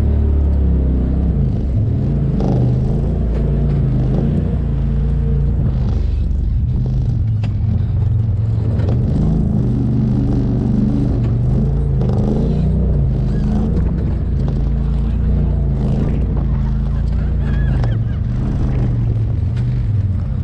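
Off-road vehicle engine running at low, varying throttle as it crawls over rock, its pitch rising and falling, easing off near the end.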